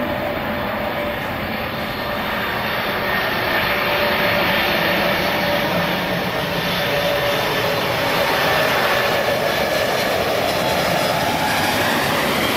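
Boeing 747-400 on final approach with landing gear down, its four jet engines giving a steady rushing noise with a whine that grows a little louder over the first few seconds as the airliner nears.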